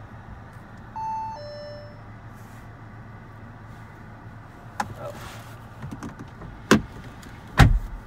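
Two-note falling electronic chime from the Audi Q3's infotainment system during HomeLink garage door syncing, over a steady low hum in the car cabin. Sharp knocks follow, the two loudest near the end.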